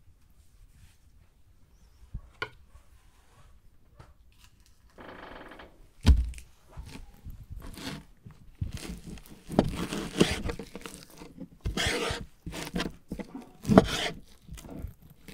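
Kitchen knife cutting raw chicken breast on a wooden cutting board: after a quiet start with a couple of light clicks, a heavy thump about six seconds in, then repeated slicing strokes and scrapes of the blade against the board.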